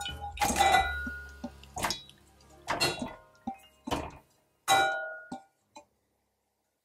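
Glass bowl knocking and clinking against the rim of an enamel saucepan as liquid and chunks of pork are scraped out of it into the pan: a run of sharp clinks with a short ringing tone, along with splashes as the meat drops into the liquid, stopping about five and a half seconds in.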